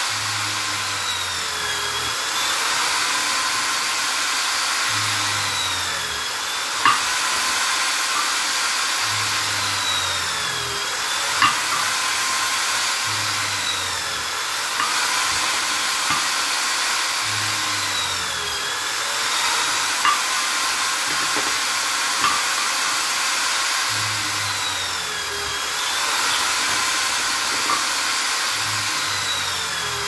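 A Vonder electric drill mounted in a drill stand runs without stopping as it bores holes into wooden blocks one after another. About every four seconds its pitch dips and recovers as the bit is fed into the wood, with a few sharp knocks between holes.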